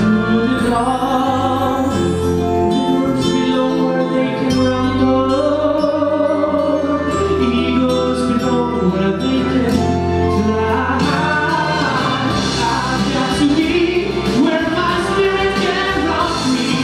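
A male solo singer sings a musical-theatre ballad into a handheld microphone over a sustained instrumental accompaniment.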